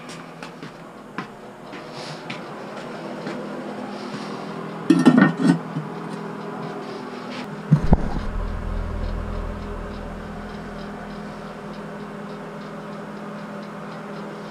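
Clinks and knocks of porcelain toilet parts being handled and set in place, with a louder clatter about five seconds in and a sharp knock just before eight seconds, over a steady low hum.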